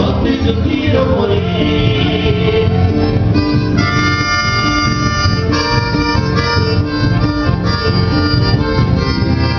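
Live trio music with no singing on the transcript: an accordion plays long held chords over strummed and plucked electric and acoustic guitars.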